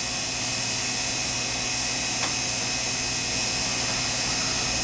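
Steady electric motor hum of a Sherline-based miniature CNC cam grinder running as its program moves the slides. There is one light tick a little past two seconds in.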